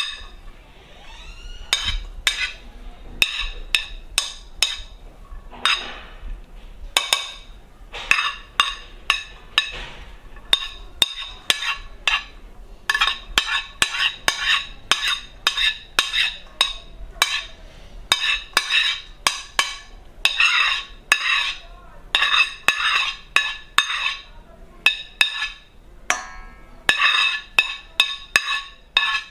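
Metal spoon knocking and scraping against a ceramic plate and a stainless steel bowl as rice is spooned off: a long run of irregular clinks, each with a short ring, coming thicker from about halfway.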